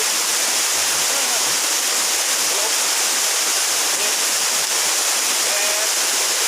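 Waterfall: a steady rush of falling water, a hiss strongest in the high range.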